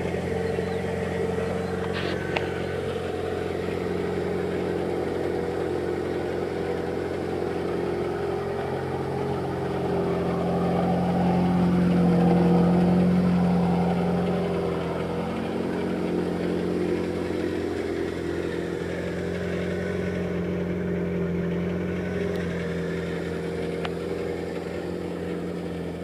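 Ferrari 348's V8 engine idling steadily, growing louder for a few seconds in the middle.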